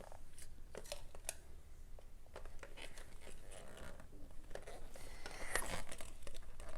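Quiet, scattered plastic clicks and handling noises from a toy picture puzzle box being worked to pop its lid open.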